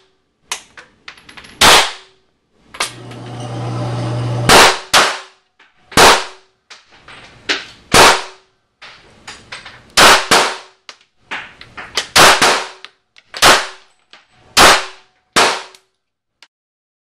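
Pistol shots fired one at a time in an indoor shooting range, about a dozen, roughly every one to two seconds, sometimes two in quick succession, each with a short echo off the range walls. Fainter cracks fall between them, and a steady hum runs for about two seconds shortly after the first shots.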